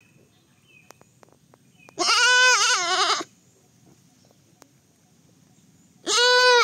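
A baby goat bleating twice: a wavering bleat of just over a second starting about two seconds in, and a second one beginning near the end.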